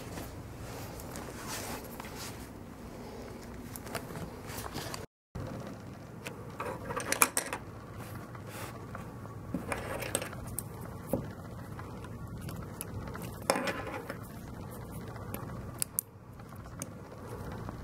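Handling noise from a black plastic glove clip and leather gloves: scattered small clicks and rattles from the clip being turned in the fingers, over soft rustling. The sound cuts out for a moment about five seconds in.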